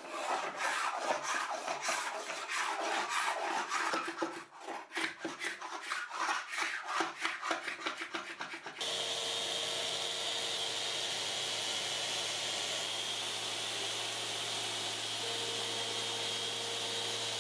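Wooden workbench top being hand-sanded with a sanding block in quick back-and-forth rubbing strokes. About nine seconds in, this gives way to a Festool random orbital sander running steadily on the wood.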